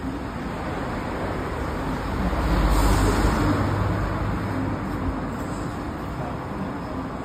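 Steady traffic noise, with a low rumble that swells up about two and a half seconds in and fades over the next two seconds, as of a vehicle passing.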